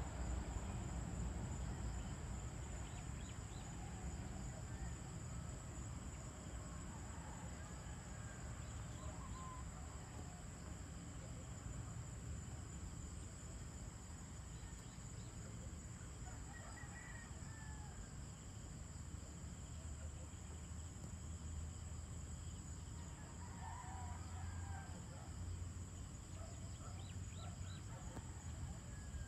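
Evening countryside ambience: scattered distant bird calls, among them what PANN takes for roosters, over a steady low rumble and an even high insect hum.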